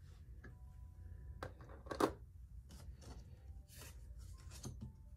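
Faint scattered clicks and rustles of small objects being handled, the loudest about two seconds in, over a steady low hum.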